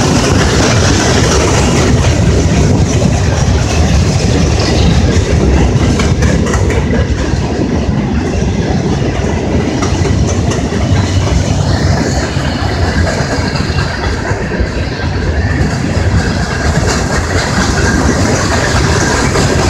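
A train of empty coal hopper cars rolling past close by: a loud, steady rumble with the wheels clicking over the rail joints.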